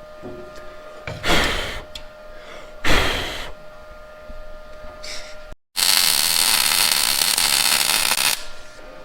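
Welding steel for a battery mount: two short tack-weld bursts, then, after a cut, a steady weld bead crackling for about two and a half seconds.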